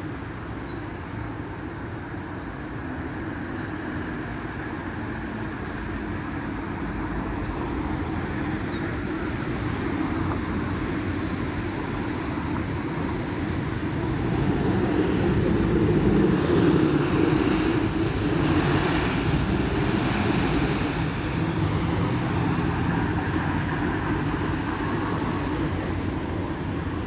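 A city bus's engine running as it comes round a roundabout and drives past among street traffic, getting louder to a peak a little past halfway through as it passes closest, then fading slowly as it pulls away.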